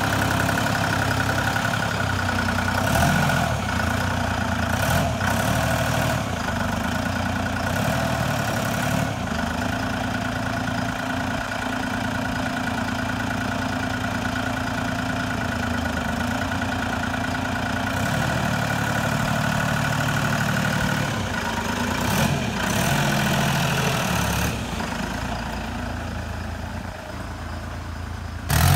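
Turbocharged engine of a 1938 Ford rat rod running steadily, with a thin high whistle from the turbo over the engine note for the first several seconds. The engine note eases off a little near the end.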